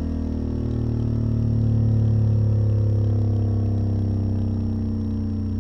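Digital Designs 610E 10-inch subwoofer playing a slow low-frequency sine sweep in free air: a deep drone with stacked overtones whose pitch shifts slowly, loudest about two seconds in. It plays clean, with no mechanical rattle from the cone or basket.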